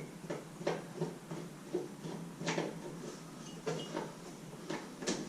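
An Allen key working a bolt on a motorcycle's plastic side cover, giving a string of irregular light clicks and knocks, about one or two a second.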